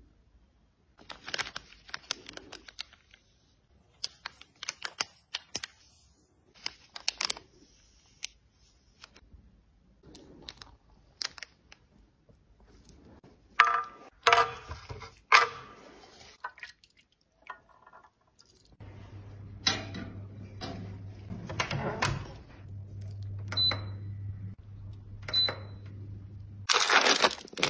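Close-up handling sounds: short scraping and clicking strokes as a metal spatula works lipstick out of its tube, then loud clicks and clatter from a stainless steel tray. About two-thirds of the way through, a countertop appliance starts a steady low electric hum, with two short high beeps from its buttons, and a loud rush of noise comes near the end.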